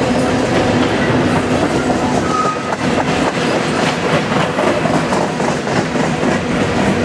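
Freight train of covered hopper cars rolling past at close range: steady rumble of steel wheels on the rails with repeated clicking as the wheel sets pass, over a steady low hum. A brief squeal about two and a half seconds in.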